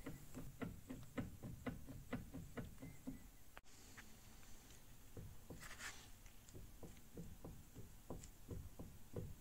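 Faint light clunks, about two to three a second, as a 1994 Ford Explorer's front driveshaft slip yoke and front differential pinion flange are rocked back and forth by hand: the knock of excess play in the worn slip yoke and the loose front pinion bearing.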